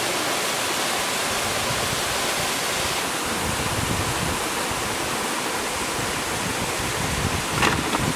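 Steady rush of a shallow stream running over rocks, with a brief knock near the end.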